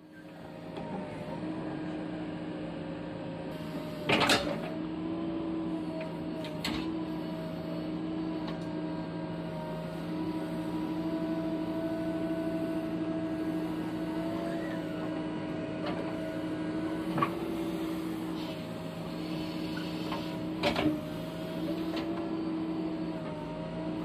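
JCB 3DX backhoe loader's diesel engine running steadily with a hydraulic hum that rises and falls under load as the backhoe digs. Four sharp clanks of the bucket striking rock, the loudest about four seconds in.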